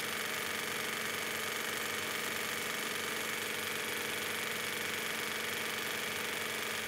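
Electric domestic sewing machine stitching a seam through two layers of cotton fabric, its motor running at a steady speed.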